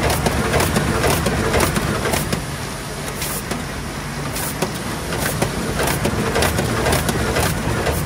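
Aster 180 book-sewing machine running, sewing printed signatures: a steady mechanical clatter with sharp clicks repeating about once or twice a second.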